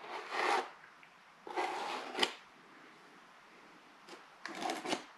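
Drywall knife scraping joint compound in a mud pan: three separate scrapes a second or two apart, the second ending in a sharp click.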